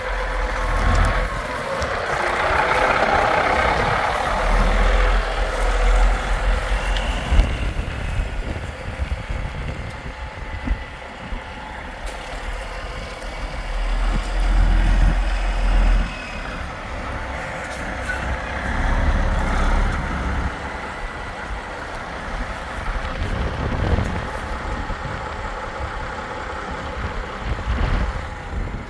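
Freightliner semi truck tractor's diesel engine running as the truck drives slowly across a field, swelling louder several times, with wind on the microphone.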